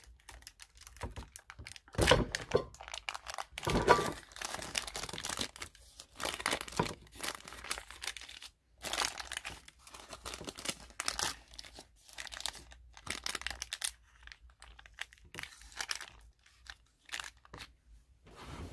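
Parchment baking paper crinkling and rustling in irregular bursts as it is pulled from a loaf tin and peeled off the sides of a baked terrine, loudest about two and four seconds in.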